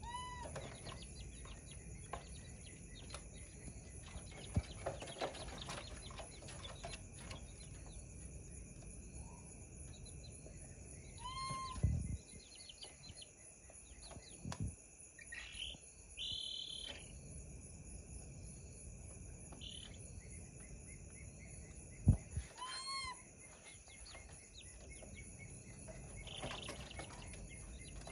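Baby monkey giving short, whistle-like calls, three in all, spaced about ten seconds apart, over a steady chirring of crickets. There are a few soft thumps as well.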